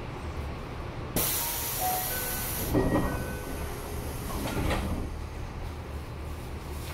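Train car's sliding doors closing at a station: a sudden hiss of air about a second in, a few short chime tones, then the door panels sliding shut and meeting with a thump about four and a half seconds in, over the stopped train's steady low hum.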